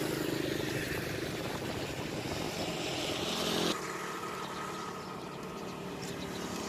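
Steady drone of motor engines; after an abrupt cut about halfway through, motorbikes run along a rural road.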